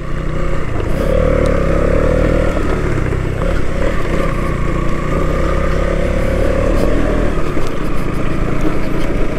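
Motorcycle engine running at a fairly steady pace while the bike is ridden over rough off-road ground, with a few light clicks of clatter.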